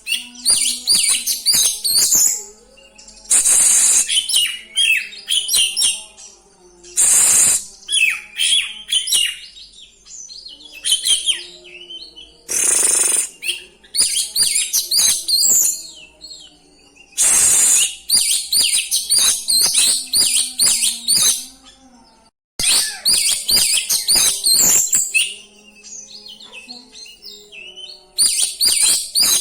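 Oriental magpie-robin (kacer) in full rolling song: rapid, varied chirps and whistles mixed with mimicked phrases, broken every few seconds by a loud, harsh rasping burst.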